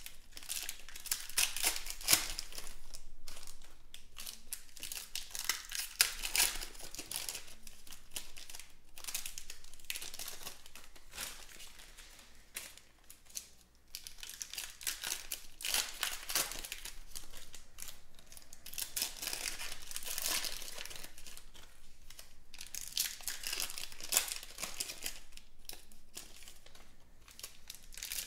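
Foil trading-card packs crinkling and tearing as they are ripped open by hand, an uneven run of crackly rustling with a short lull about halfway through.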